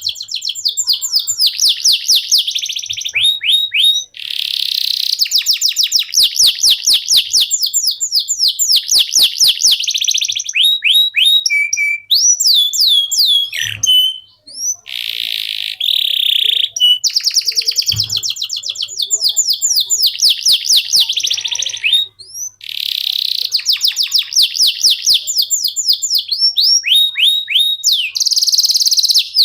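Canary singing a long, fast song: phrases of rapid trills and rolls made of quick repeated sweeping notes, with brief pauses between phrases.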